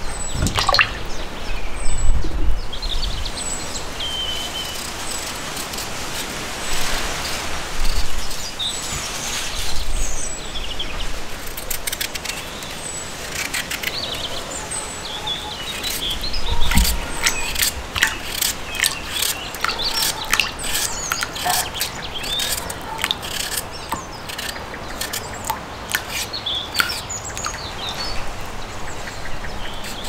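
Small knife peeling raw potatoes in short scraping strokes, coming thick and fast through the second half, with small birds chirping now and then.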